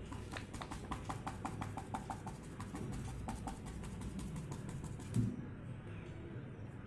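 Paintbrush dabbing paint onto paper in quick repeated taps, about four a second, thinning out after about three and a half seconds. A single louder thump about five seconds in.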